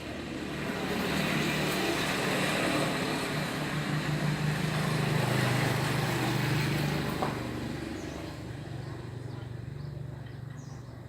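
A road vehicle passing: engine hum and road noise swell up over about a second, hold, then fade away after about seven seconds.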